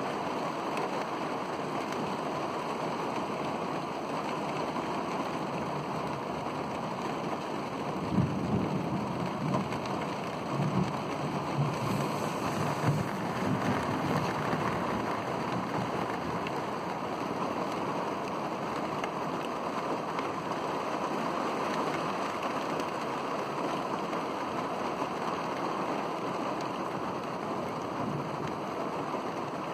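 Heavy rain falling steadily. About eight seconds in, thunder rumbles for several seconds in a few rolling swells, then dies back into the rain.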